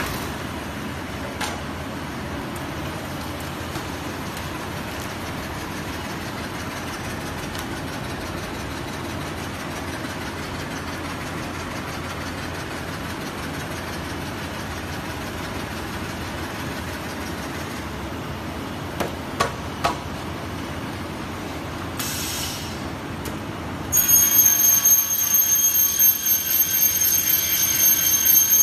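Steady workshop machine noise, then, about three-quarters of the way in, an aluminum pipe cutting machine's saw cuts through an aluminum profile with a loud, high-pitched screech that holds to the end.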